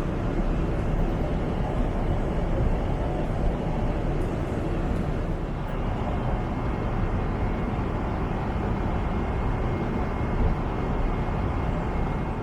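Steady engine and airflow noise inside the cabin of a Boeing 777-300 airliner, an even low rumble with a faint thin whine on top.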